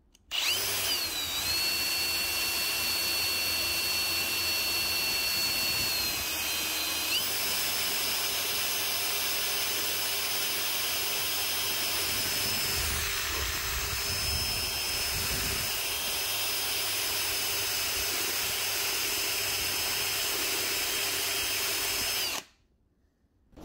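Cordless drill running steadily, spinning a BMW M54 engine valve against a steel wire wheel that scrapes hard carbon deposits off it. The motor's whine shifts pitch about a second in and again about seven seconds in, and cuts off about a second before the end.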